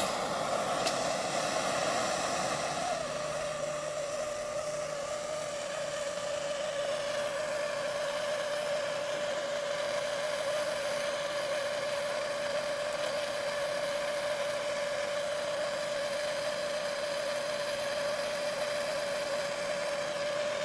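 Gas torch flame burning with a steady roar and a whistling tone, heating a choke-cable end fitting to melt solder onto the fluxed cable. The flame sound changes and settles into a single steady whistle about three seconds in.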